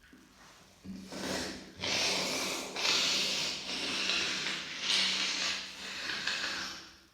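A person's congested nose: wet sniffling and nose-blowing, a long run of noisy airflow through the nose starting about a second in and swelling and easing about six times.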